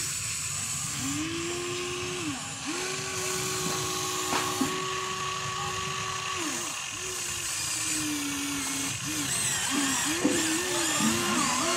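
Huina RC excavator's electric motors whining as it dumps its bucket and slews round. The whine comes in spurts, ramping up and down in pitch as each motion starts and stops, and wavers quickly near the end.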